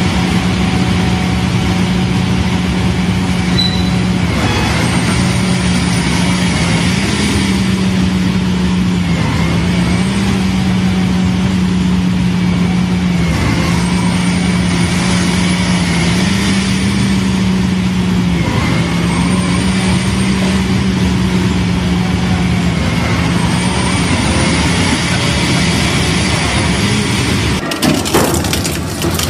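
Industrial crusher machine running under load: a loud, steady drone that steps up and down in pitch every few seconds over a constant grinding clatter.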